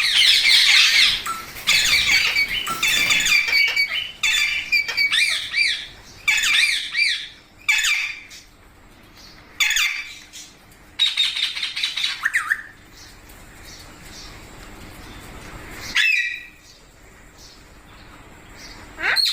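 Indian ringneck parakeet squawking: rapid harsh calls in close succession for the first several seconds, then single squawks a few seconds apart.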